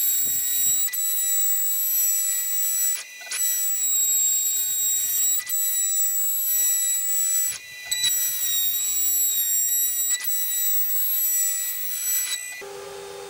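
CNC router spindle running with a steady high-pitched whine. The whine dips briefly about three seconds in and again at about seven and a half seconds, then stops suddenly shortly before the end.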